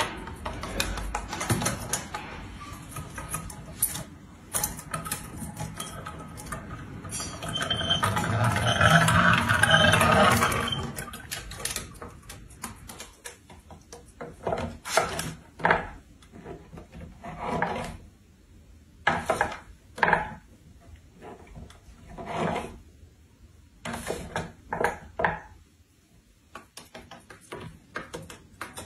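Small toys being pushed, picked up and set down by a monk parakeet, clicking and knocking on a wooden tabletop in short, irregular taps, with a louder, longer stretch of noise about a third of the way through.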